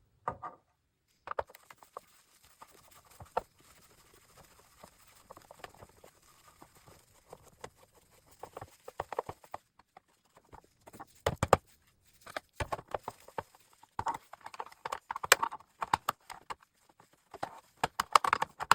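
Irregular clicks, taps and knocks of a screwdriver and plastic parts as screws are taken out of a computer monitor's plastic base and the base is worked off, coming in bunches of quick clicks with short pauses between.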